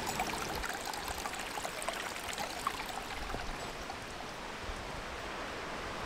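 Steady rush of running stream water.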